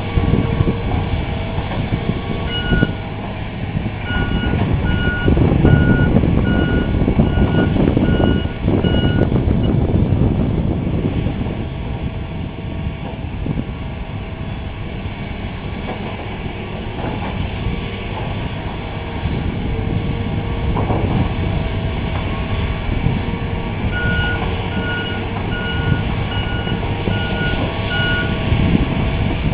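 Heavy diesel engine of a Hitachi tracked excavator running as it works, with a backup alarm beeping about twice a second in two spells, one near the start and one near the end.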